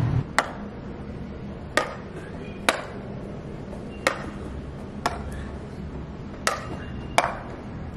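Badminton rally: a shuttlecock is struck back and forth with rackets, seven sharp hits roughly one to one and a half seconds apart, some louder than others.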